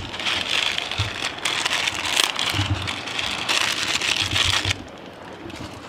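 Sardines in tomato sauce sizzling in a frying pan, a steady crackling hiss with a few soft low thumps as noodles are added; the sizzle drops away near the end.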